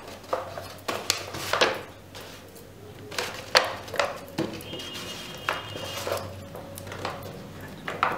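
Stiff cartridge paper crinkling and crackling in irregular bursts as it is folded inward over a wire ring and the paper tube is handled, with a few light taps.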